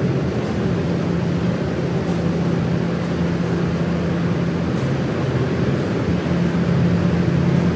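Standing electric fan running with a steady low hum and an even rush of air.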